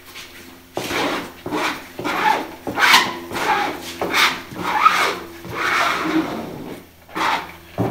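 Plastic squeegee scraped back and forth over epoxy on fibreglass cloth inside a cedar-strip canoe hull, working the resin into the weave. About a dozen short scraping strokes, roughly two a second, starting about a second in.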